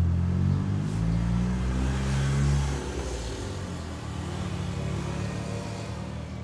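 A motor vehicle's engine passing on the road: a loud low running hum that swells and then fades about three seconds in, leaving a quieter drone.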